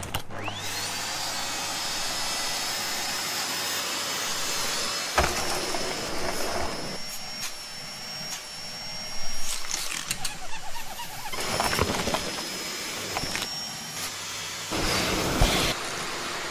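Vacuum cleaner switched on, its motor whine rising and then holding steady over a rushing noise. The whine drops out and comes back, and a few short, louder noises break in.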